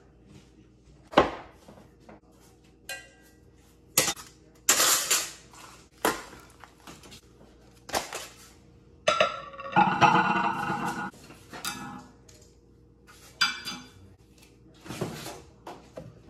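Packing being handled as a boxed microwave is unpacked: a run of separate knocks, rustles and scrapes as cardboard and foam packing pieces are lifted out and set down on a stone countertop, with clinks from the glass turntable tray being taken out. The longest, loudest scraping comes about ten seconds in.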